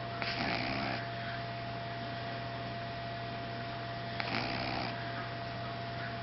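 A pug snoring: two snores about four seconds apart, each under a second long, over a steady electrical hum.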